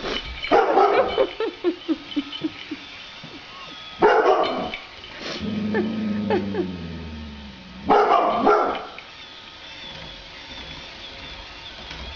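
Dog barking in three short bouts about four seconds apart, the first a quick run of several barks.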